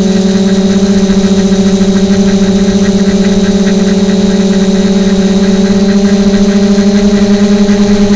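REPTILE500-V3 quadcopter's electric motors and propellers in flight, a loud, steady buzzing hum with a slight pulsing beat, picked up close by the camera mounted on the copter.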